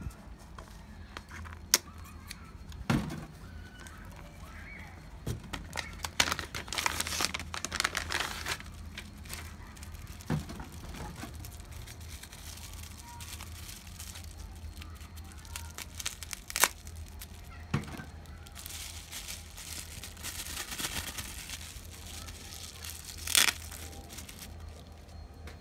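Packaging being unwrapped and handled by hand: crinkling and rustling in two longer stretches, with scattered sharp clicks and taps in between.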